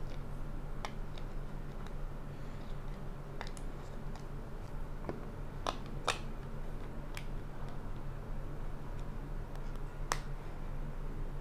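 Sharp plastic clicks as AA batteries are seated in a CatEye HL-EL135 bicycle headlight's battery compartment and the plastic case is pressed shut, the loudest pair about six seconds in and one more near the end. A steady low hum sits underneath.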